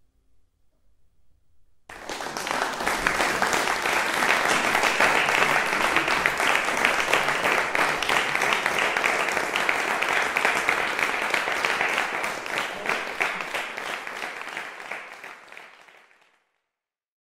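Audience applauding after the music ends: a thick patter of many hands that starts suddenly about two seconds in and fades out near the end.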